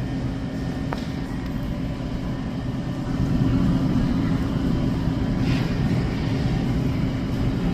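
Car running on the road: a steady low engine drone with road noise, a little louder from about three seconds in.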